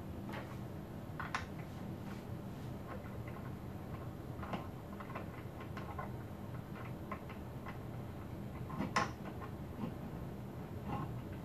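Light, irregular clicks and taps of small screws and mounting-bracket parts being handled and fitted by hand, the sharpest about nine seconds in, over a low steady hum.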